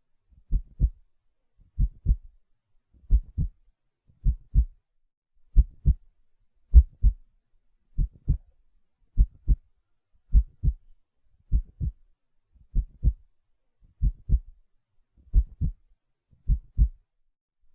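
A slow, steady heartbeat, each beat a low double thump (lub-dub), at about fifty beats a minute.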